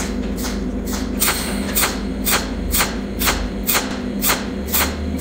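Cold welding machine's torch electrode snapping out weld pulses on the broken edge of a steel key, about two sharp clicks a second, over a steady low electrical hum.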